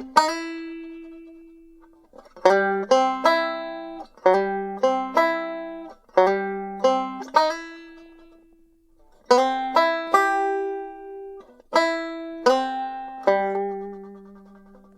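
Banjo plucked in short phrases of a few quick notes, each note ringing and fading away, with pauses of a second or two between phrases.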